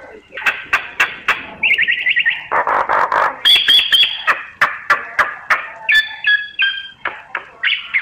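Myna calling in a rapid, varied medley of sharp clicks and harsh chatter, with a quick trill about two seconds in and a few clear whistled notes around the middle.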